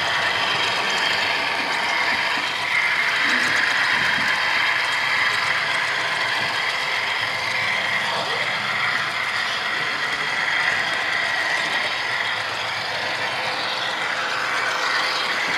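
Model diesel locomotive and its freight cars running along the layout's track: a steady mechanical whir and rattle of the drive gears and wheels on the rails.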